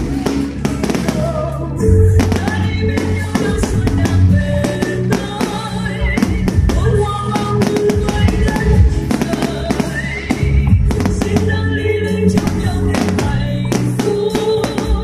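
Music playing, with Tết fireworks banging and crackling many times throughout.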